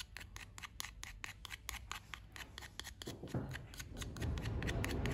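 Small plastic spatula stirring paint into thick leather filler in a plastic bottle cap, making rapid, even scraping clicks, several a second. About three seconds in, a louder low noise joins the scraping.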